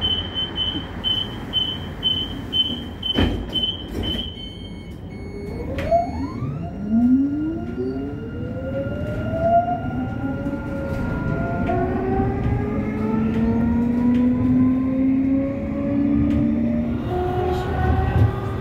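Inside a 2015 Durmazlar İpekböceği low-floor tram: a rapid high beeping for about four seconds with a knock partway through, typical of the door-closing warning, then the electric traction drive whines, several tones rising in pitch and stepping up as the tram pulls away and accelerates, over the rumble of the wheels.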